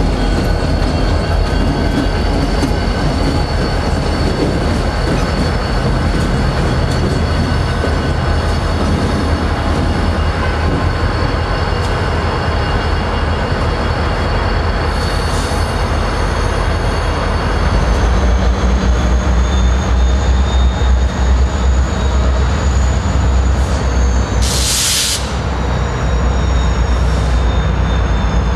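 Union Pacific EMD GP-series ("Geep") diesel locomotives working cars, a low diesel engine drone that gets louder about two-thirds of the way through, with steady high-pitched wheel squeal over it. Near the end a short, loud hiss of about a second.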